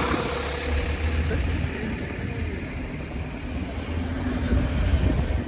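Car cabin noise while driving: a steady low engine and road rumble.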